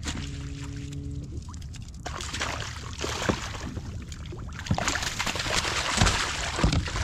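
A steady hum for about the first second, then water splashing and sloshing against a boat, with scattered clicks and a few low knocks.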